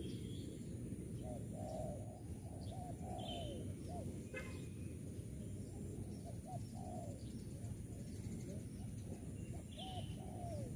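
Spotted dove cooing: a run of short, rounded low coo notes that starts about a second in and keeps repeating, with a few high chirps of small birds over a steady background hiss.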